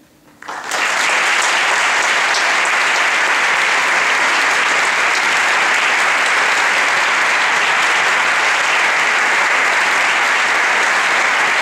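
Audience applause breaking out about half a second in, then continuing steadily as dense, even clapping.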